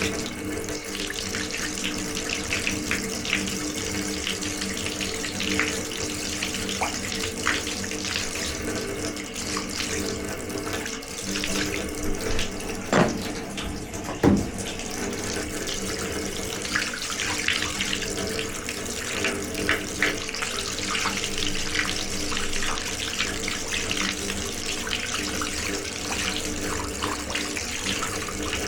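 Water running steadily from a tap, with a low steady hum beneath it and two sharp knocks about halfway through.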